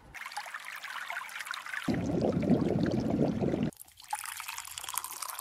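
Water pouring and trickling in separate short stretches, the loudest and fullest in the middle; near the end, water is poured from a metal kettle into a cup of coffee grounds.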